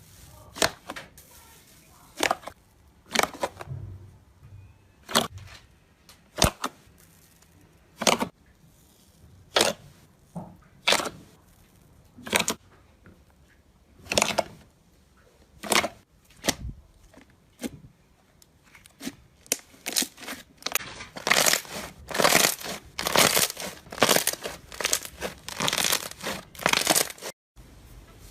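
Slime being worked by hand, giving sharp popping clicks about once a second, then quicker, denser pops for the last several seconds.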